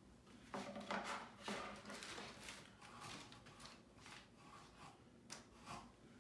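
Rustling and crinkling of trading cards and packaging being handled, a run of irregular papery crinkles with a few sharper taps and scrapes, loudest in the first couple of seconds.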